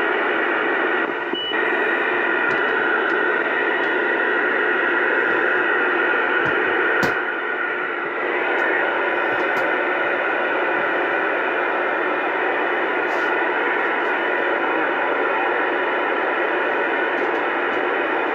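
Steady hiss of open-channel static from a Uniden Bearcat 980SSB CB radio's speaker, cut off above the treble as radio audio is, with a single click about seven seconds in.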